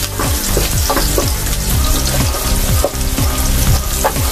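Chopped garlic sizzling in hot fat in a frying pan, with background music with a steady beat.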